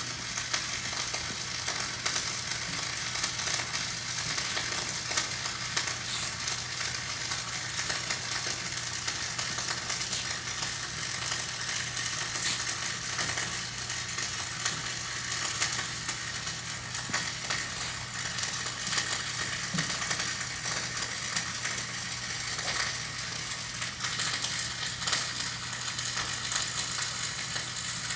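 Flux-cored dual-shield wire-welding arc running steadily, with an even crackling sizzle as a bead is laid on a steel T-joint. A low steady hum sits underneath.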